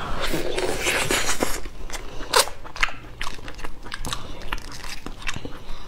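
Close-up eating sounds of soft durian flesh being bitten and chewed: wet mouth noises and a run of irregular sticky clicks.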